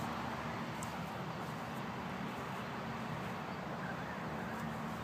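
Steady outdoor background hum and hiss with no distinct event.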